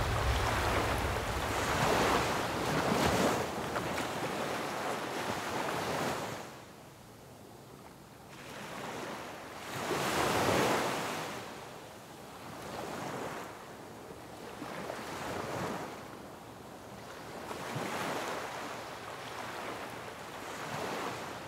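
Ocean surf washing onto a beach, each wave swelling and fading every few seconds.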